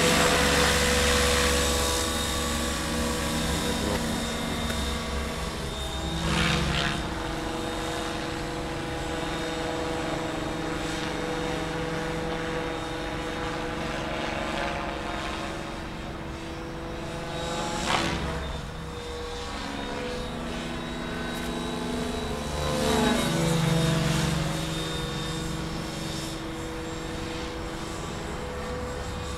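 Mikado Logo 600 electric radio-controlled helicopter in flight: a steady pitched hum from its motor and spinning rotor. The sound swells louder as it manoeuvres, about six seconds in, briefly and sharply at about eighteen seconds, and again at about twenty-three seconds.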